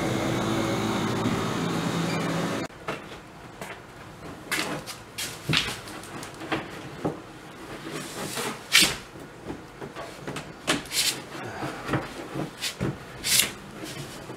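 A steady droning sound with held tones cuts off about two and a half seconds in. After it come scattered, irregular clicks, knocks and clatters of parts and tools being handled while a Torklift EcoHitch is fitted beneath a Tesla Model S's rear bumper.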